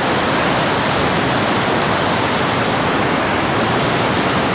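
Fast-flowing floodwater rushing past, a loud, steady wash of water noise.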